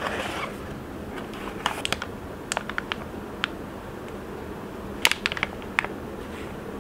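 Hands handling boxed electronics packaging: scattered short sharp clicks and crinkles of plastic bags and a cardboard box, in two clusters, over a steady background hum.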